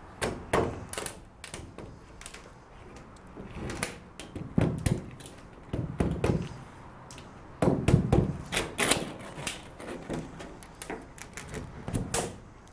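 Rubber mallet lightly tapping a bracket down onto the edge of a multi-wall polycarbonate awning board: a long run of irregular knocks, some louder than others.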